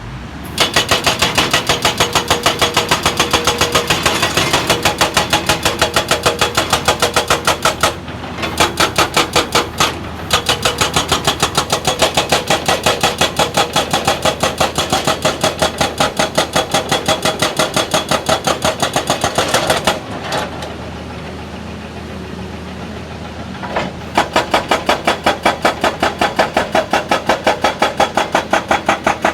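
Excavator-mounted hydraulic rock breaker hammering in fast, even blows, roughly eight a second, with the excavator's diesel engine running underneath. The hammering stops briefly about eight and ten seconds in, and for about four seconds near two-thirds of the way through, leaving only the engine, then starts again.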